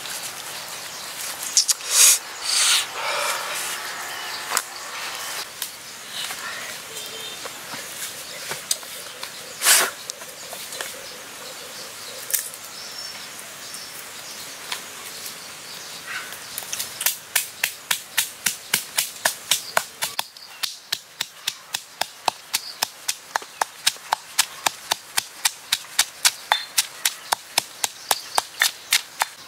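Pestle pounding chilies and garlic in a stone mortar: a steady run of sharp knocks, about three a second, starting past the halfway mark. Before that, scattered knocks and rustling from handling herbs and ingredients.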